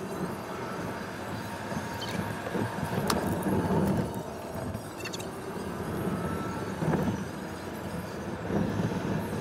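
Car cabin noise while driving: a steady rumble and hiss of the engine and tyres on the road, with a few louder bumps and a couple of sharp clicks.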